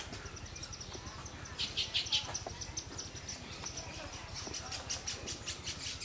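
Baya weavers chattering: rapid runs of short, high chirps, loudest about two seconds in, over a steady thin high tone.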